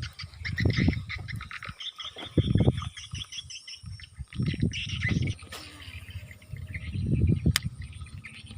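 Frogs croaking: four low, rough croaks about two seconds apart, with birds chirping faintly behind.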